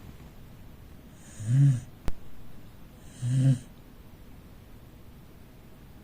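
A sleeping corgi snoring: two short, low snores about two seconds apart, each with a breathy hiss. A single sharp click falls between them.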